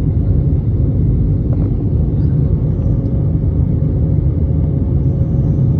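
Steady cabin noise of an airplane in its climb, heard from inside: an even low rumble of engines and airflow with a faint steady hum above it.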